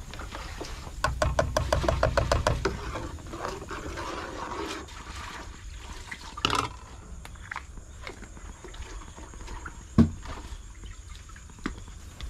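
Metal spoon rattling quickly against a jar of chili satay sauce as it is scooped into a pot of hotpot broth, about eight to ten taps a second for under two seconds. A few single knocks follow, the loudest a sharp knock about ten seconds in, over soft liquid sounds from the broth.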